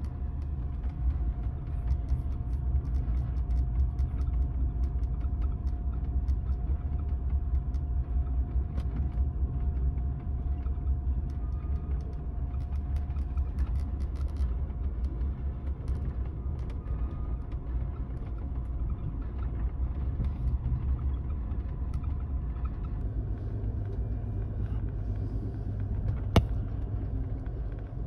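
Steady low rumble of a Superliner sleeping car riding the rails, heard inside the roomette, with scattered small clicks and creaks and a faint steady hum. One sharp click near the end.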